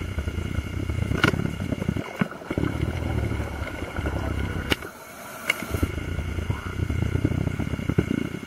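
Scuba diver's exhaled bubbles rumbling out of the regulator in three long bursts a couple of seconds apart, the rhythm of underwater breathing, with a few sharp clicks between.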